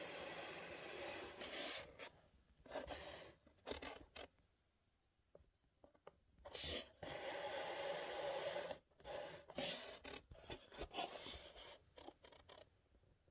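Faint rubbing and scraping handling noise in several bursts of a second or two, separated by short quiet gaps, as the hand-held phone and board are moved about close to the microphone.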